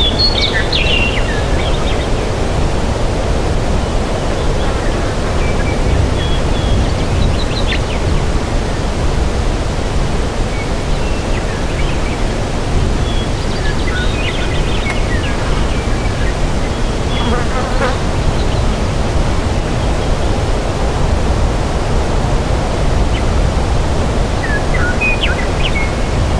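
Forest ambience: a steady rushing noise, heaviest in the low end, with short high bird chirps now and then. The chirps come in a small cluster at the start and again near the end.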